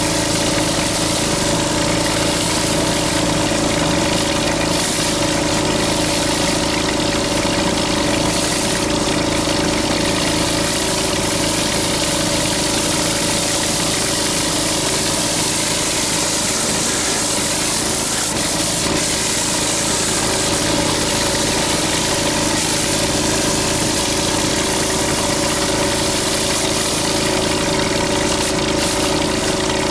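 Gas-engine pressure washer running steadily, under the continuous hiss of water spraying from a rotary surface cleaner on concrete.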